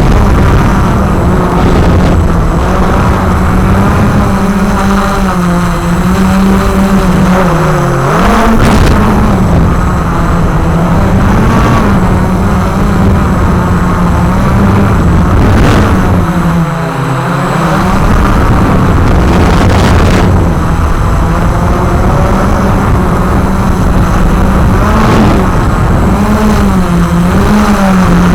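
Walkera QR X350 Pro quadcopter's motors and propellers buzzing in flight, the pitch wavering up and down as the throttle changes, with a brief drop about 17 seconds in. A low rumble runs underneath.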